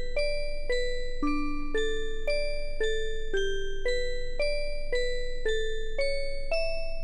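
Background music: a simple tune of single ringing notes, about two a second.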